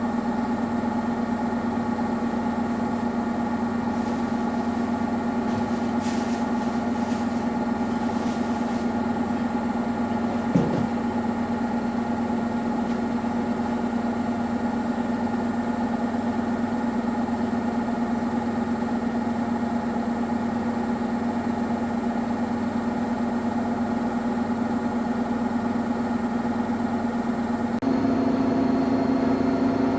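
Samsung Eco Bubble washing machine running a cotton wash cycle: a steady motor hum from the turning drum, with one short knock about ten seconds in. Near the end the hum changes pitch and grows a little louder.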